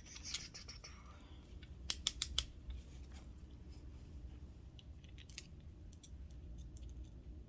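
Metal tweezers and small sewing-machine parts clicking against each other while a tiny clutch spring is being fitted: a quick run of four sharp clicks about two seconds in, then scattered lighter ticks.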